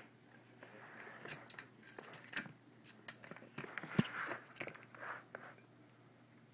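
A ferret playing with an empty shoe-freshener spray can: irregular clicks, knocks and scrapes as it bites and bumps the can and its plastic cap. The loudest knock comes about four seconds in.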